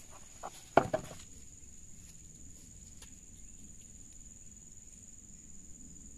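Insects droning steadily at a high pitch, with a short cluster of close knocks about a second in.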